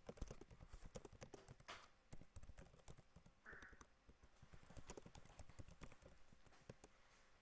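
Faint computer keyboard typing: a run of irregular, quick keystroke clicks.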